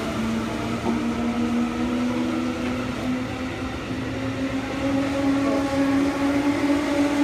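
JR East 211 series electric multiple unit pulling out and picking up speed, its motor and gear whine rising slowly in pitch over the steady rumble of the wheels on the rails.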